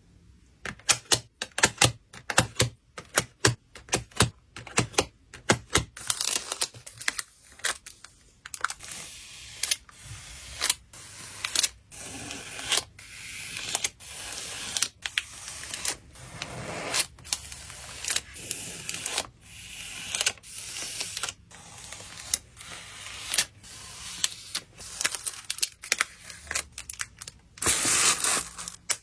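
Close-up sounds of hands packing photocards: a quick run of sharp taps and clicks, then rustling, scraping strokes about once a second, with a longer, louder rustle near the end.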